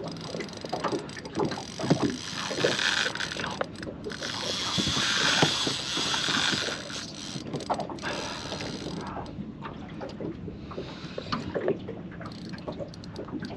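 Fishing reel being wound in on a lure retrieve, with clicking and small knocks of handling in the boat, and a rushing hiss that swells in the middle.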